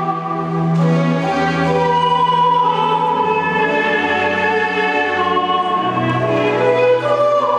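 Male countertenor singing slow, long held notes in an operatic style, with a steady lower note sounding beneath.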